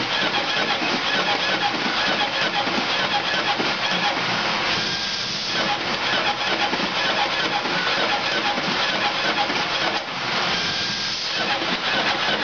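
Automatic business card cutter running as it feeds and slits a paper sheet: a loud, steady mechanical clatter and hiss made of fine rapid ticking. The sound shifts briefly about five seconds in and again near ten seconds.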